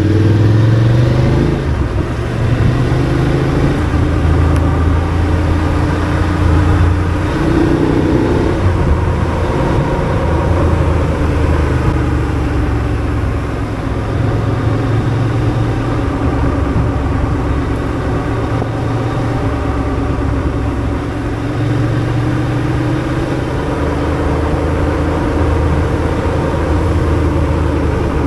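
BMW F 850 GS parallel-twin engine running under way, its pitch rising briefly near the start and again about eight seconds in as it accelerates, then holding fairly steady.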